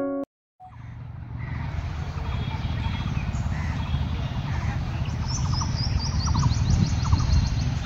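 Distant diesel locomotive rumbling as it pulls out and notches up, the low engine sound slowly growing louder, with birds chirping over it. A few notes of piano music cut off at the very start, then a brief silence.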